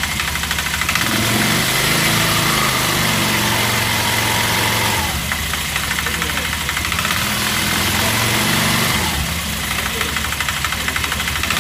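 Cectek ATV engine idling with a rapid knocking, revved up twice and dropping back to idle between. The owner supposes that the clutch is knocking.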